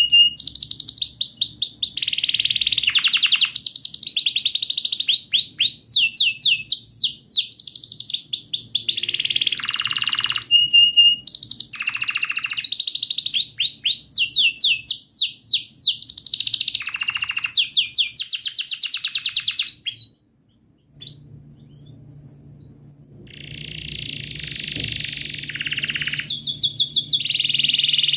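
Domestic canary singing a long song of fast rolling trills and chirps. The song cuts off suddenly about two-thirds of the way through, then returns more softly and builds up again near the end.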